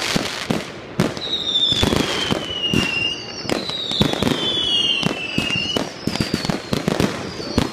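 Fireworks going off close by in a dense barrage of bangs and crackling. Two long whistles fall in pitch, one starting about a second in and another about three and a half seconds in, with shorter whistles near the end.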